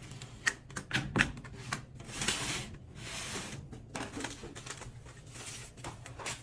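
Hand squeegee drawn in firm strokes over tape on a sheet-metal unit box, giving short scraping swipes, with a few sharp clicks and knocks from handling the metal.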